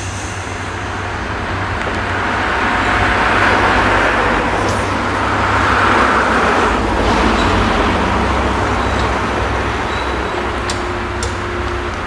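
New Holland CX combine harvester running steadily while its unloading auger pours shelled maize into a semi-trailer: a low engine drone under a rushing hiss of grain that swells in the middle.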